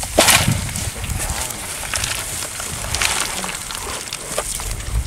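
Water splashing and sloshing as a fish trap is handled, with one sharp loud splash-like knock about a quarter second in, then scattered lighter clicks and knocks.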